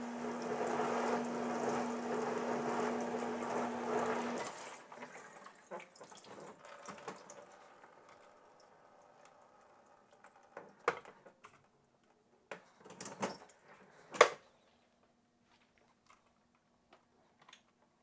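Whirlpool dishwasher running its wash cycle: water spraying inside the tub over a steady motor hum, stopping suddenly a few seconds in. It is followed by a few scattered clicks and knocks of the wire dish rack being handled in the open machine.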